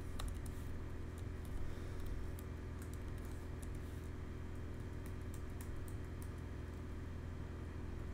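Typing on a computer keyboard: irregular runs of keystrokes, busiest in the first half, over a steady low hum.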